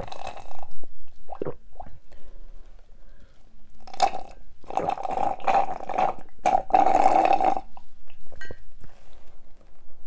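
Slurping the last of the water through a plastic drinking straw from a nearly empty glass: air and water gurgle up the straw in several noisy slurps, the two longest, over a second each, in the second half.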